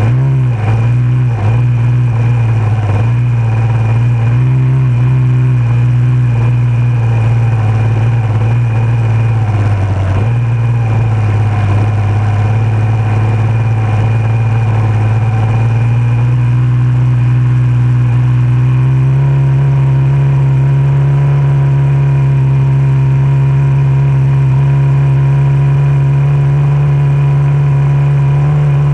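A racing hydroplane's outboard motor running flat out. Its pitch wavers over the first several seconds, dips briefly about ten seconds in, then settles on a steady, slightly higher note about two-thirds of the way through.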